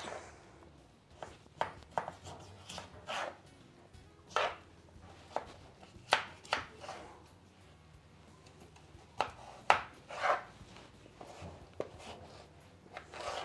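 Kitchen knife slicing through a peeled raw potato on a plastic cutting board: a dozen or so irregular cuts, each ending in a short knock of the blade on the board.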